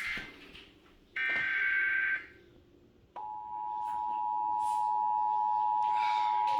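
Emergency Alert System audio: the end of a SAME header data burst, then one full burst about a second long with a harsh digital warble. After a second of silence, the two-tone EAS attention signal starts and holds steady.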